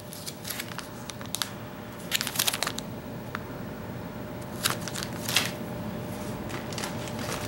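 Clear plastic soft-bait packs crinkling as they are turned over and held up, in scattered short rustles. Near the end there is rummaging in a cardboard box.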